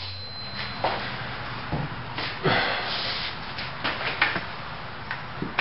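A few irregular knocks and scuffs: footsteps on a concrete floor and a corded drill being carried and handled.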